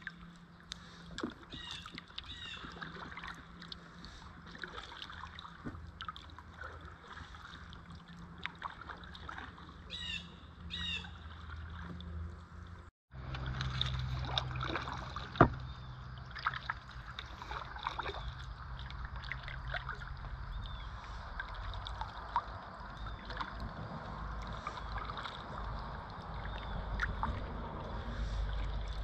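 Kayak paddling: the paddle dipping and dripping water, with scattered clicks and knocks, over a steady low rumble. Birds call in the first half, a few short repeated calls.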